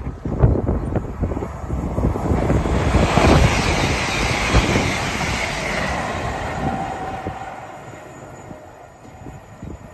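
A TransPennine Express Class 802 bi-mode train passing at speed: the rush of wheels on rail builds to its loudest a few seconds in, then fades away as it recedes, with a whine that falls in pitch as it passes. Wind gusts on the microphone at the start.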